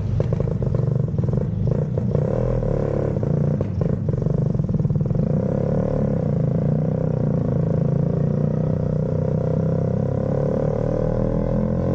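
Vespa extreme's two-stroke single-cylinder engine running under way through its restrictive 'sapi tank' exhaust, with rattling knocks in the first few seconds. The engine note then climbs steadily as the scooter gathers speed.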